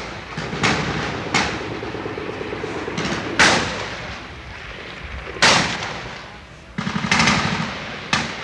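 Riot sound-effect mix: loud gunshots, each with an echoing tail, ring out every second or two over a continuous crowd din, with a rapid string of shots about seven seconds in.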